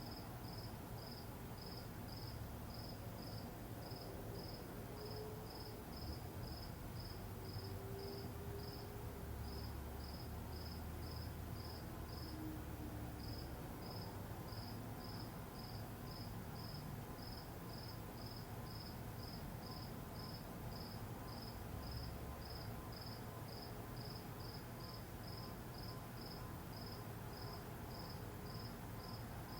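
A cricket chirping in a steady, even rhythm, about two to three chirps a second with a couple of brief pauses, over a low background rumble.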